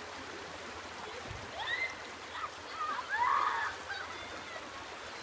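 Big Sur River flowing steadily, with a few short high-pitched gliding calls between about one and a half and four seconds in, the loudest just past the three-second mark.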